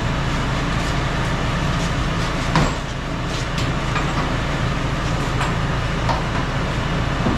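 Steady low rumble of a truck loaded with rice sacks being pushed by hand, with one sharp knock about two and a half seconds in.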